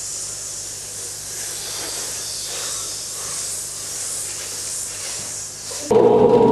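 A group of people hissing out a long, steady "sss" on one breath, a voice-training breathing exercise. It stops abruptly near the end, and the group's voices come in loudly on a held, sung tone.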